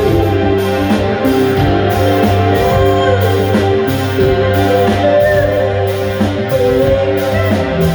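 Live band playing a guitar-led rock song, with sustained guitar notes over a low bass line and a steady cymbal beat.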